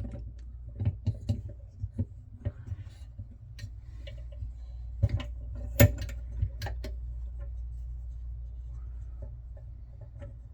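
Small metal padlock parts and tools being handled: irregular light clicks and taps, with two sharper knocks about five and six seconds in, over a steady low hum.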